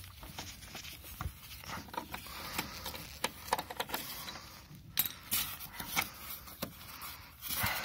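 Irregular clicks, clinks and scrapes of a hand tool and loose bolts being worked out of a car's headlight mounting, with a longer scrape near the end.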